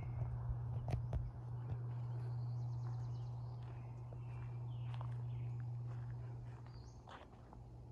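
Footsteps walking over a steady low hum, with faint high bird chirps scattered through.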